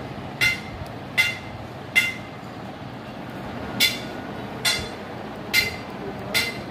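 Short, sharp pitched chirps repeating about every 0.8 s, seven in all with a pause of nearly two seconds in the middle, over a steady background hum.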